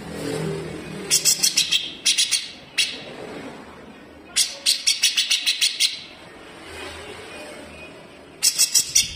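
Grey-cheeked bulbul (cucak jenggot) singing in quick bursts of rapid, harsh, sharp repeated notes, four bursts in all. This is the tight 'besetan' chatter used as a master recording for training cucak ijo to copy.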